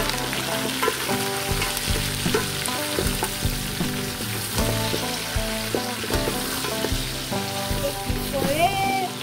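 Beef and chopped vegetables sizzling in an aluminium pot while a wooden spoon stirs them, with short knocks and scrapes of the spoon against the pot.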